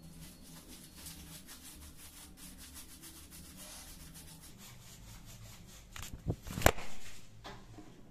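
Camera phone being picked up off the floor and handled: hands rubbing and knocking against the microphone in a loud cluster about six seconds in, after several seconds of low room hum.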